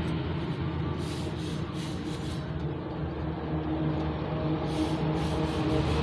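A steady low machine hum, like a motor running, with short bursts of hiss now and then.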